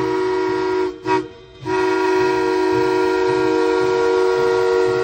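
Steam whistle of a narrow gauge K-28 class steam locomotive blowing a chord of several notes: one long blast that breaks off about a second in, a brief toot, then another long blast held to the end.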